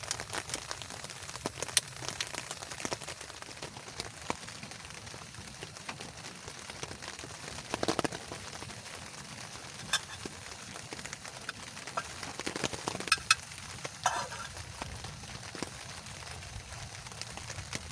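Rain pattering steadily, with scattered sharper drips and taps standing out a few times.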